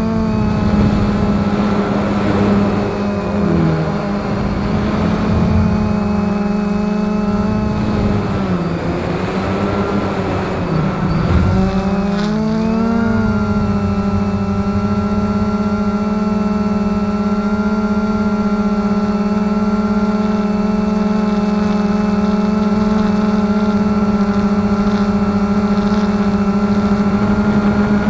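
XK X380 quadcopter's motors and propellers droning, heard through its onboard camera. The pitch of the hum dips and wavers several times in the first dozen seconds as the drone changes speed, then holds steady.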